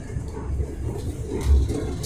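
Class 385 electric train running, heard from inside the carriage as a steady low rumble. A single dull thump comes about one and a half seconds in.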